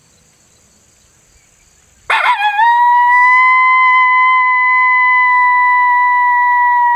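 Lone coyote howl blown on an MFK diaphragm call. About two seconds in it breaks in with a short rough rise, then holds one long, loud, steady note to the end.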